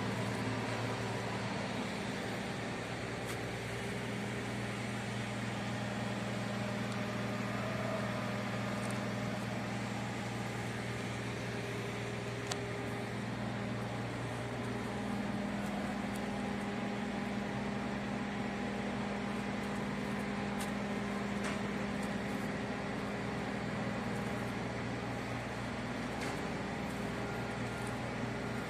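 Steady hum of construction-site machinery made of several low engine-like tones, one of which dips slightly in pitch about fourteen seconds in, with a few faint knocks.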